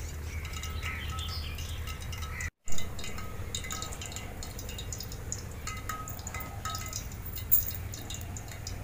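Small birds chirping on and off, with light scattered clicking. A low rumble in the first seconds ends abruptly at a brief dropout and a loud pop about two and a half seconds in, and there is one sharp clack about three-quarters of the way through.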